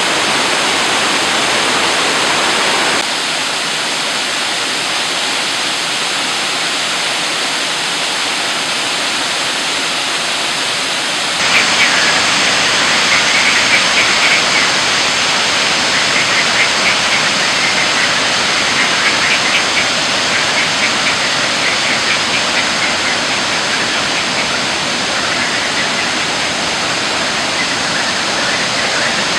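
Steady rushing of waterfalls and streams cascading over karst rock. The rush changes abruptly twice and grows fuller about eleven seconds in, with faint high chirps over it from then on.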